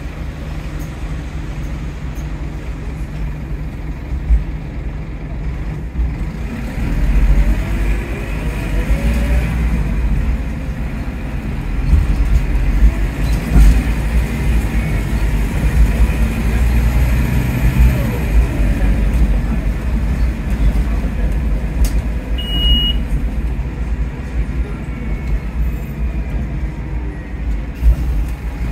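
Scania K230UB OmniLink bus's engine and ZF Ecomat automatic gearbox heard from inside the saloon, running on the road and pulling away, with the whine rising and falling in pitch as it gains speed and eases off. A short high beep sounds about two-thirds of the way through.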